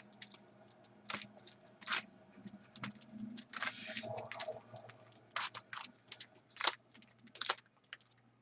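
Hockey card packs being handled and set down into piles on a table: irregular crinkles, ticks and taps, over a faint steady hum.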